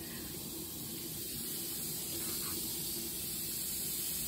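Raw ground-beef patties sizzling on the hot plates of a George Foreman electric grill as they are laid on: a steady hiss that grows slightly louder as more meat goes down.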